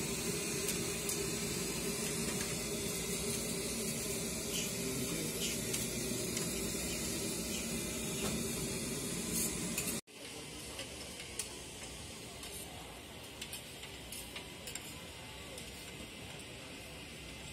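Oil sizzling on a flat iron griddle while a metal spatula scrapes and clicks across the hot plate, for about ten seconds. After a sudden cut the sound drops to a quieter background with a few light clicks of a spoon in the plated fried rice.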